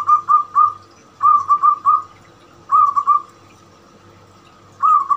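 Young zebra dove (perkutut) cooing its song in four short bursts of quick coos, three or four notes each, spaced a second or two apart.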